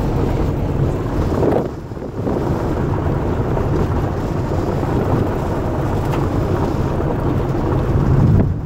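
Car driving along a gravel levee road: steady tyre and road noise with wind rushing over the microphone, dipping briefly about two seconds in.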